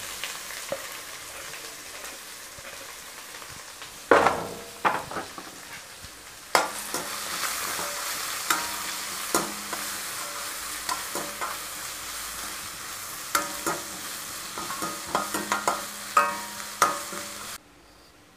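Chopped onions frying in hot oil with cumin, curry leaves and garlic in a steel pan: a steady sizzle, with the spatula scraping and clicking against the pan as they are stirred. The sizzle gets louder about six and a half seconds in and cuts off suddenly near the end.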